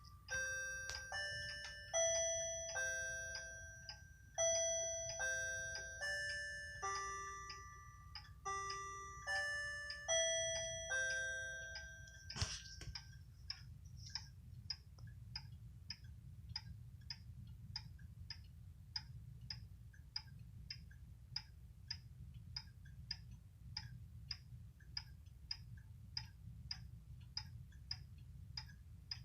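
Heritage 31-day wall clock's coil chime playing a melody of ringing, slowly fading notes for about twelve seconds, with one last stronger stroke. Then the pendulum movement ticks steadily, about two ticks a second.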